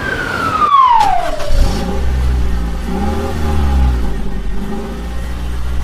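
Electronic vehicle sound effect: a whistle tone falls over the first second and a half, then a steady low engine hum runs with a wavering, revving tone.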